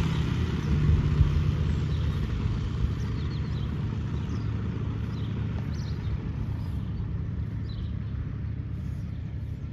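Swallow light aircraft's propeller engine running as the plane taxis away, its steady drone slowly fading.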